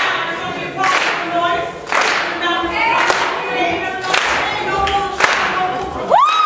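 A group of voices chanting or singing in unison over a beat of claps or stomps about once a second, typical of a stepping routine. Near the end a high whistle glides up and down.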